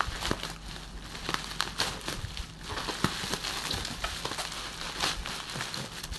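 Plastic packaging crinkling and crackling as a parcel bag and its wrapping are pulled open by hand, a steady run of small irregular crackles.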